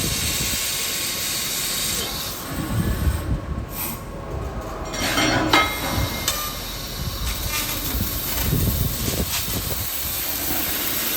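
Tube laser cutting machine at work: a steady high hiss of assist gas from the cutting head, which stops about two seconds in. Low mechanical rumbling and knocking follow, with a sharp loudest noise about halfway, before the hiss comes back in the second half.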